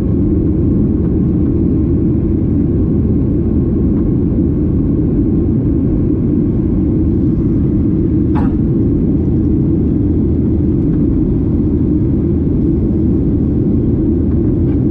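Steady, loud rumble of a Boeing 737-800's engines and airflow heard from inside the passenger cabin, unchanging throughout, with one brief faint sound about eight seconds in.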